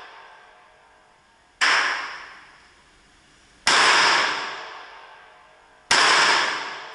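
Three shots from a Springfield Armory XD(M) Compact 9mm pistol, about two seconds apart, each a sharp crack followed by a long echo off the walls of the indoor range.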